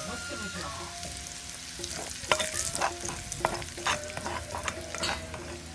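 Hot oil sizzling and bubbling over ground chili and sesame in a ceramic bowl as chili red oil is made. From about two seconds in, a metal spoon stirs the mixture, clinking and scraping against the bowl.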